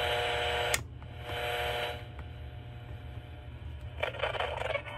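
Alarm clock buzzer beeping in on-off bursts of under a second, with a click as each burst starts and stops: one burst at the start and a fainter one about a second later, over a low hum.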